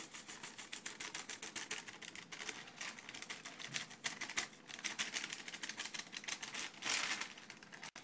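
Plastic packet of dried herbs crinkling as fingers pinch and crumble the herbs out of it, a fast run of small crackling ticks with a louder rustle near the end.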